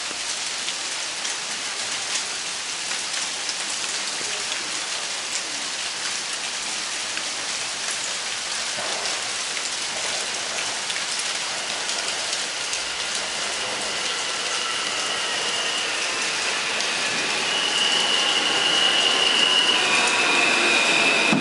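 Steady rain falling, with an R160B subway train approaching and growing louder over the last few seconds. Near the end a high whine from the train rises above the rain as it pulls into the station.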